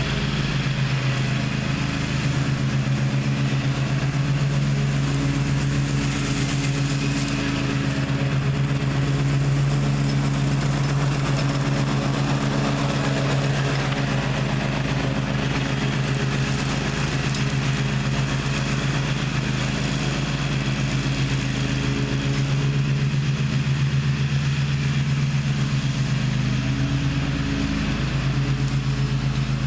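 Gravely ZTX 42 zero-turn mower's engine running steadily at an even pitch while mowing.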